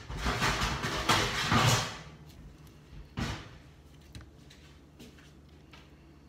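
Kitchen knife slicing a ripe avocado half into strips in its skin. For about two seconds there is loud scraping and rustling, then it goes quiet with faint knife clicks and one short scrape about three seconds in.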